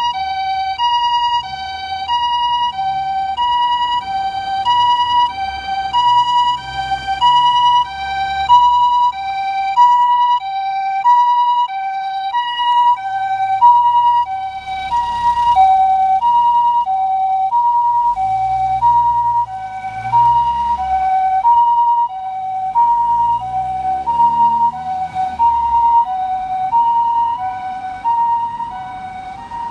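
Clarion electronic siren on a Nissan Caravan ambulance sounding the Japanese two-tone hi-lo emergency pattern, a high and a low note alternating about every two-thirds of a second. It runs loud and unbroken over low engine and road rumble, easing slightly near the end.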